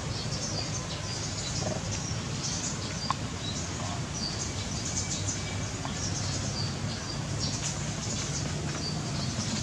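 Outdoor ambience of small birds chirping over and over against a steady low background rumble, with one sharp click about three seconds in.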